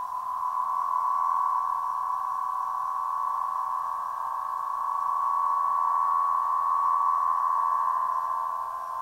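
A 104-inch Aeolian wind harp's strings sounding in the wind: a high, ringing drone of several close tones around one pitch. It swells up in the first second, rises and falls gently with the gusts, and eases off near the end.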